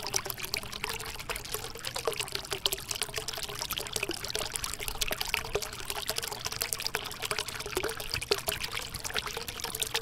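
Water pouring and trickling steadily over a small homemade rock-style waterfall fountain.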